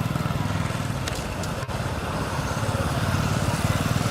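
A motor vehicle engine running steadily in a low, pulsing hum, briefly cutting out just under two seconds in.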